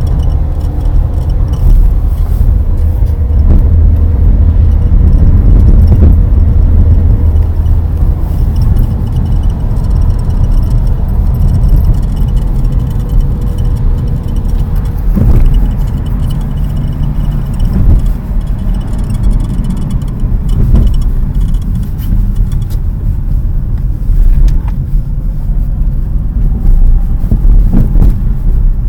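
Lada Priora sedan (2007) moving, with a steady low rumble and short creaks from the right bonnet hinge now and then. The owner thinks a strut-tower brace would probably stop the hinges creaking, that is, the creak comes from the body flexing between the shock towers.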